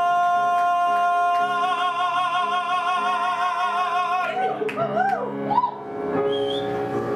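A male singer holds a long final note, with instrumental accompaniment underneath. The note is steady at first and takes on vibrato about a second and a half in. It ends about four seconds in, followed by a few short sliding vocal notes as the accompaniment carries on.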